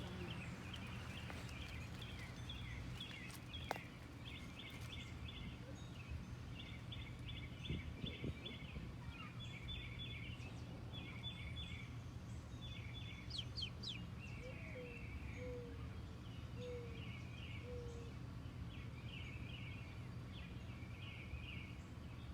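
Outdoor birds calling: a steady, rapid pulsed chirping runs throughout, with a short run of four soft, low, evenly spaced notes about two-thirds of the way through and a few faint taps.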